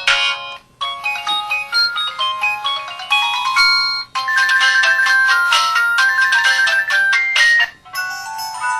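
Polyphonic ringtone melody played through the Samsung SCH-V500 flip phone's small speaker: quick electronic notes with no bass. It breaks off briefly about a second in, about four seconds in and near the end.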